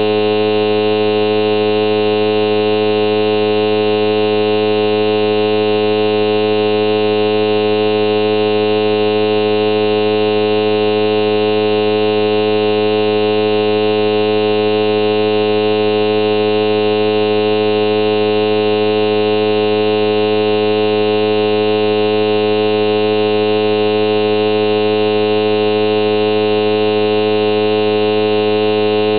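Loud, steady electronic buzz made of many unchanging tones at once, with no variation at all. It is typical of a stuck, looping audio glitch rather than a real-world source.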